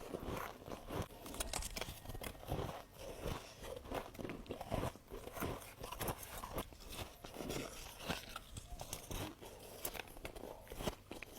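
Close-up crunching and chewing of brittle humidifier ice: many quick, irregular crunches as it is bitten and chewed.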